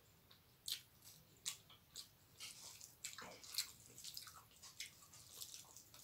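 Faint wet squishes and sharp little clicks of fingers mixing rice with dal and fish gravy in a steel plate, coming irregularly, about one or two a second.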